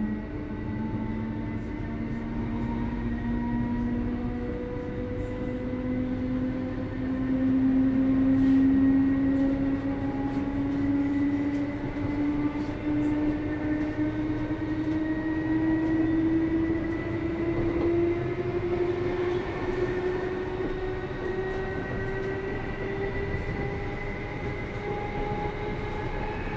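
Inside a Class 319 electric multiple unit gathering speed. The whine of its GEC G315BZ DC traction motors rises steadily in pitch over the wheel and running rumble.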